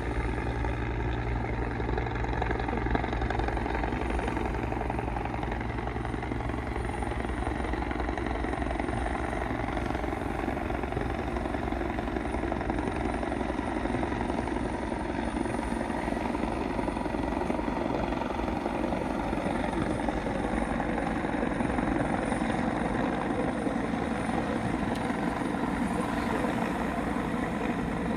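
Police helicopter flying, its rotor and engine making a steady, continuous drone.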